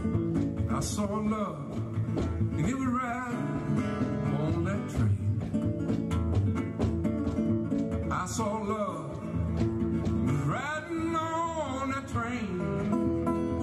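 Solo acoustic blues guitar played fingerstyle as an instrumental break, with a few long, wavering sung notes without words over it.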